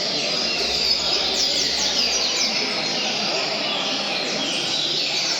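Several coleiros (double-collared seedeaters) singing at once in quick overlapping runs of sharp sloping whistled notes, over a steady low background din.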